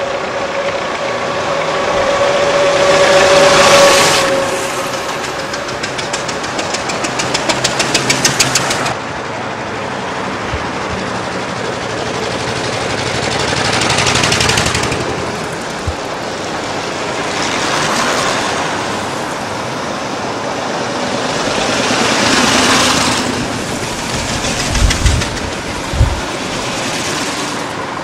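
Veteran cars driving past one after another, each pass swelling and fading. About six to nine seconds in, one car's engine clatters rapidly, quickening and growing louder, then stops suddenly. Two sharp thumps come near the end.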